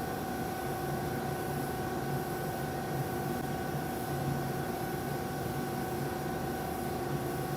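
CNC spring coiling machine running with a steady electric hum and whine, holding several constant tones.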